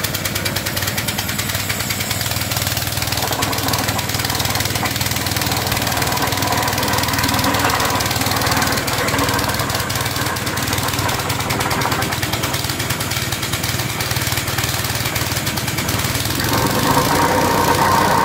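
Wacker Neuson VP plate compactor's small petrol engine running steadily as it warms up. About two seconds before the end it speeds up and gets louder as the plate is put to work.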